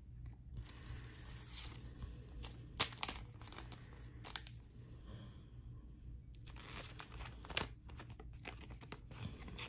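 Faint rustling and crinkling of trading cards and a clear plastic sleeve being handled, with a few sharp clicks, the loudest about three seconds in and another about seven and a half seconds in.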